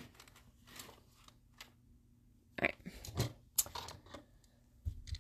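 A few light clicks and taps, bunched together a little past halfway through.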